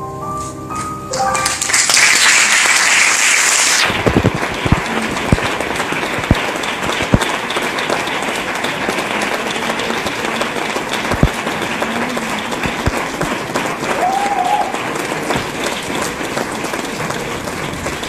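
The last piano notes of a song ring out, then an audience breaks into applause about a second in. The applause is loudest for the first few seconds, then settles into steady clapping that keeps going.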